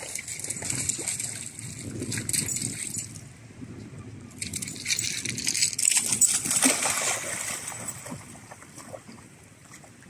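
Dog splashing through a shallow rock pool, in two spells: one in the first few seconds and a louder one about halfway through, fading away near the end.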